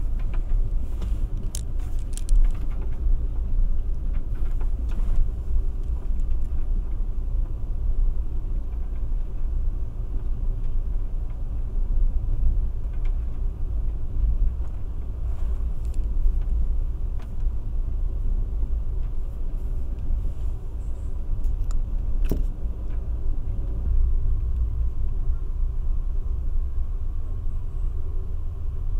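Steady low rumble of an Amtrak Superliner passenger car rolling along the track, heard from inside the car, with a few sharp clicks and knocks.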